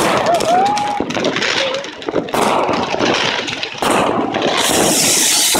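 New Year's fireworks and firecrackers going off close by: rapid crackling bangs with a couple of short rising whistles in the first second, then a dense, continuous crackle and hiss.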